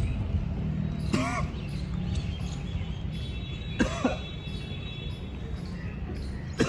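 A man coughing and making short strained vocal sounds three times, about a second in, around four seconds and near the end, as his mouth burns from a whole, very hot chili he has just chewed. A steady low rumble runs underneath.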